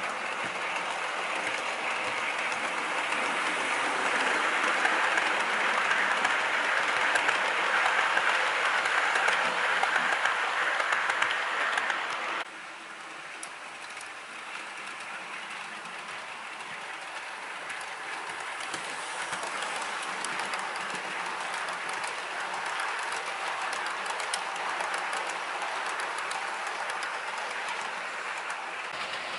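Accurascale Class 37 model locomotive and a long rake of Mark 1 coaches running on the layout's track, a steady rolling rumble of wheels on rail that grows louder as the train comes closer. It drops suddenly about twelve seconds in, then builds slowly again.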